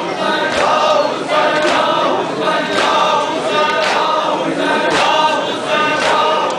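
A crowd of men chanting a nauha (mourning lament) together, with sharp strokes of hand-on-chest matam at an even beat of about two a second.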